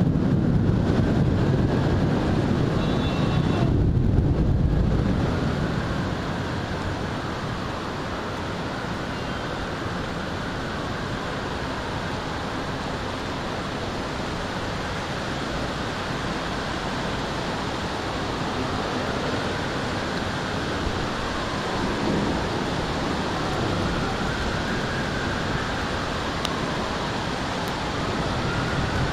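Thunder rumbling through the first five seconds or so, then fading into the storm's steady hiss of rain and wind. Later a distant siren wails, rising and falling, and grows clearer near the end.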